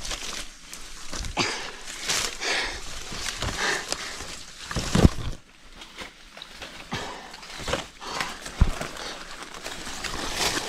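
Irregular rustling with scattered knocks and thuds, the sharpest about halfway through and again later on.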